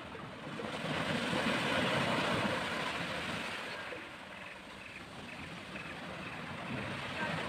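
Small sea waves washing up a sand beach and drawing back, the surf swelling about a second in, easing off midway and building again near the end.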